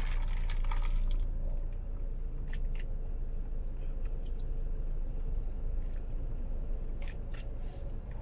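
A few faint clicks and rustles of a straw and ice in a plastic iced-coffee cup as the drink is stirred and sipped, over a steady low rumble in a parked car's cabin.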